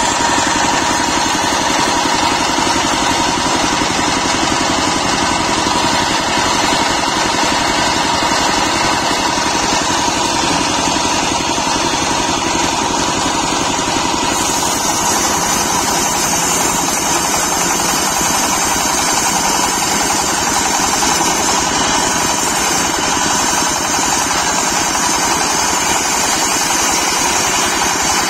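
Single-cylinder stationary diesel engine of a portable sawmill running steadily, driving the circular saw blade. About halfway through a higher hiss joins it as the blade is fed a teak log and cuts through it.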